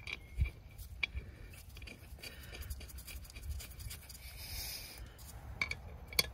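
Faint handling noise as a steel mounting bracket is shifted and aligned on a rubber air spring: light clicks and knocks of metal parts, and a brief scrape a little past the middle. Near the end a wrench clicks onto the nut.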